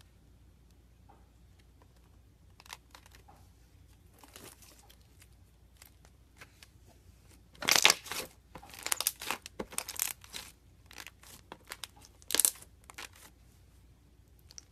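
Irregular crackling and crunching as a hand presses a soft blue gel-like mass through a round metal grid. It starts faint, grows busier from about three seconds in, and is loudest in a few sharp crunches about halfway through and again near the end.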